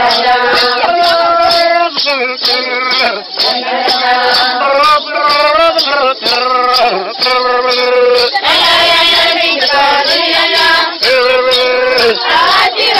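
A group of women singing a traditional Coniagui dance song together, in long held phrases that break off and start again every second or two.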